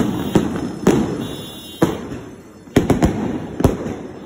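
Fireworks going off in the street: about eight separate sharp bangs at uneven intervals, each with a short echoing tail.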